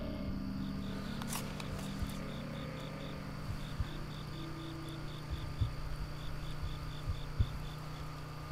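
Crickets chirping, short high chirps about five a second in runs with brief breaks, over a steady low hum. A few short low thumps come in the second half.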